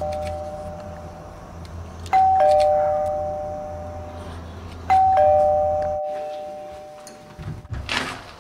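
Doorbell chiming "ding-dong" twice, about three seconds apart, each time a higher note followed by a lower one, both ringing out. A short sharp sound comes near the end.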